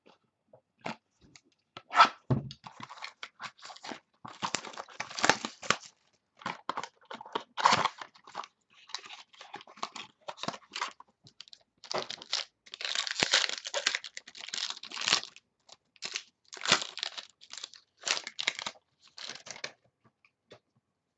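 Plastic wrapping being torn off a box of trading cards and crumpled in the hands: irregular crackling and tearing in bursts with short gaps, stopping shortly before the end.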